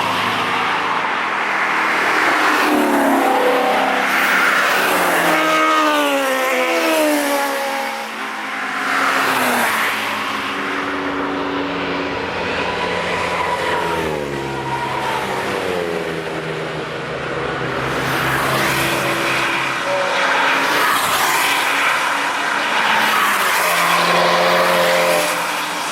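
Cars driven hard on a race circuit passing one after another, roughly three passes. Each engine note sweeps down in pitch as the car goes by.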